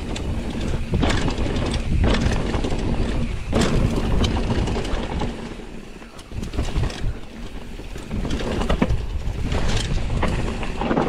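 Mountain bike riding over a rough dirt trail: tyres rumbling, wind noise on the microphone, and sharp knocks and rattles from the bike hitting bumps, easing off briefly about six seconds in.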